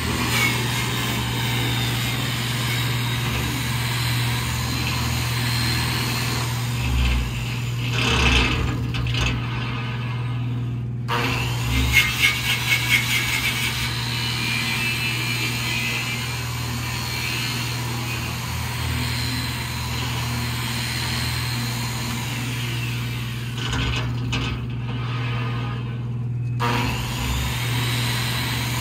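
Handheld angle grinder grinding on the steel plate of a large circular sawmill blade, over a steady low hum. The grinding breaks off twice for a couple of seconds, and there is a short rattle of quick knocks between.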